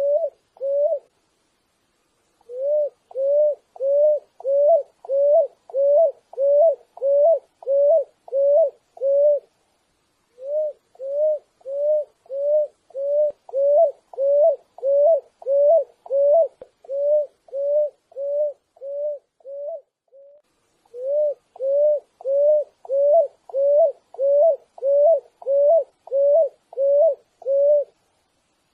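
Picui ground dove (Columbina picui) singing: long runs of short, low cooing notes, each rising at the end, repeated at just under two a second. There is a brief pause near the start and two more partway through.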